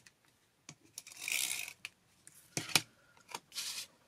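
A glue tape runner drawn across card in two short rasping swishes, with a couple of sharp clicks between them, the loudest sound, as the runner and the stiff holographic card are handled.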